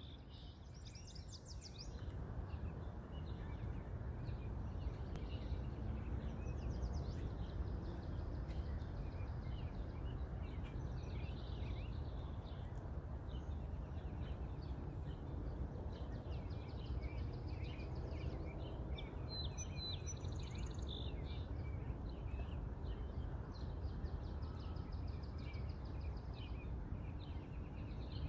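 Birds chirping, with repeated fast trills, over a steady low rumble of background noise.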